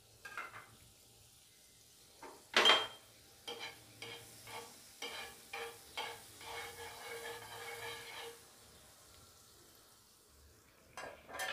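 Flat metal spatula spreading sizzling, foaming butter across a hot nonstick tawa. There is a sharp clack against the pan about two and a half seconds in, then a run of quick scraping strokes, about two a second, that stops after about eight seconds.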